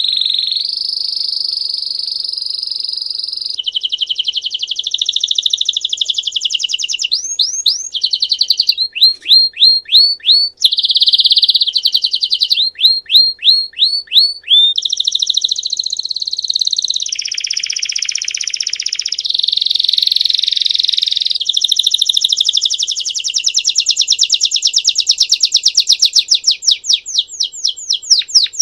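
Belgian domestic canary singing its 'campainha' (bell) song without a break: a string of rapid trills and rolls that switches to a new phrase every few seconds, with runs of separate sweeping notes, about three a second, in the middle.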